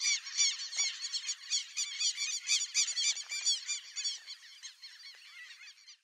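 A flock of white-backed stilts calling: a dense run of rapid, overlapping high calls, fading out over the last two seconds.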